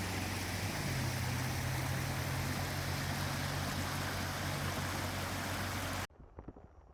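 Floodwater rushing down a wadi, a loud steady rush with a low steady hum under it for a few seconds; it cuts off abruptly about six seconds in.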